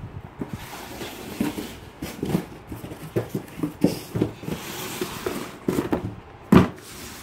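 Rustling and scattered light knocks as a cardboard product box is handled and picked up, with one loud thump about six and a half seconds in.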